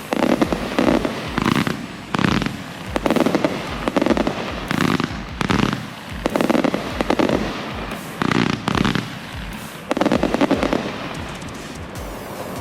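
A rapid string of consumer fireworks going off, about one to two sharp reports a second. The reports thin out near the end.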